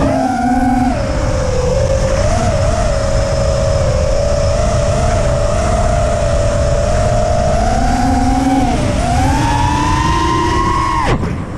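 FPV racing quadcopter's motors whining with the throttle over rushing air noise. The pitch wavers slightly, climbs again about nine seconds in, and cuts off abruptly near the end.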